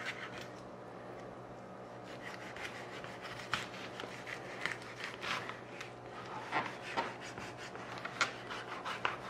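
Bubba Blade fillet knife sawing and scraping through a partly frozen jack crevalle on a wooden cutting board, in irregular rasping strokes that come more often and sharper in the second half. The fish's frozen state makes the cutting hard going. A steady low hum runs underneath.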